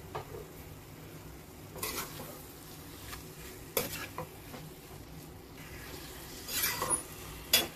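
Spoon stirring chicken pieces frying in oil in a kadai, scraping and clinking against the pan several times over a faint steady sizzle.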